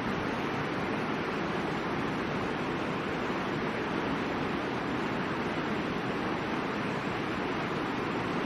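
Mountain river rushing steadily over its bed, an even, unbroken roar of water with no change in level.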